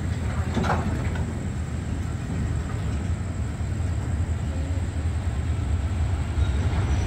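Slow-moving freight train of loaded flat wagons, heavy-load bogie wagons, rolling on the track with a steady low rumble. One brief sharper sound comes less than a second in.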